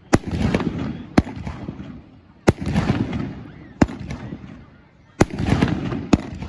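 Fireworks display: six sharp aerial shell bursts, roughly one every second or so, each followed by a crackling rumble that dies away.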